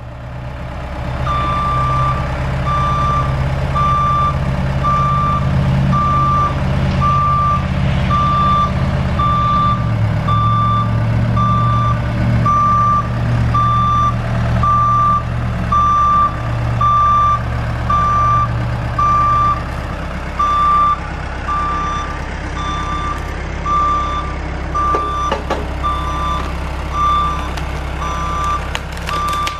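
A reversing alarm beeps steadily, about once a second, over the engine of a heavy vehicle or machine backing up. The engine runs throughout, changing pitch once or twice.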